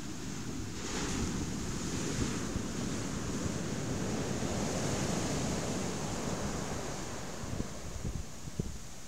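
Storm-driven surf breaking and foam washing up a sand beach, a rushing noise that swells about a second in and eases toward the end. Wind buffets the microphone, with a few low knocks near the end.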